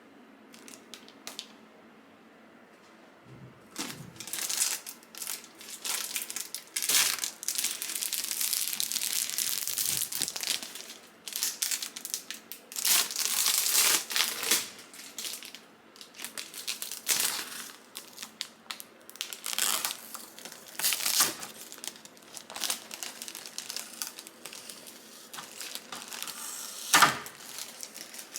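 Packaging being handled and unwrapped: irregular crinkling and rustling with some tearing, in stretches, and one sharp crackle near the end.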